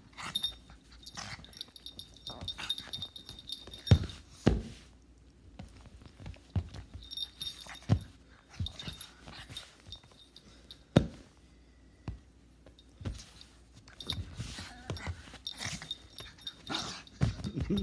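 A small dog romping on a bed, with its collar tags jingling in short bursts and scattered sharp thumps and clicks as it moves about.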